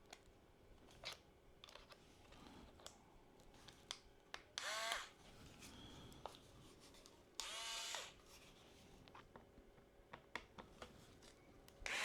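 Electric precision screwdriver with a pentalobe bit whirring in two short bursts, each a brief rising whine, about five and seven and a half seconds in, as it backs out laptop case screws. Light clicks and taps of handling come in between.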